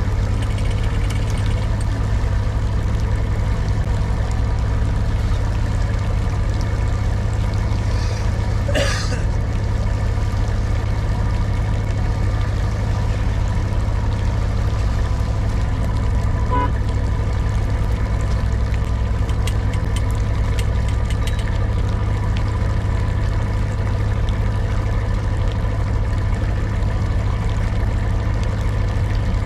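Boat engine running steadily at an even speed, a constant low drone. A brief hiss-like noise cuts through about nine seconds in.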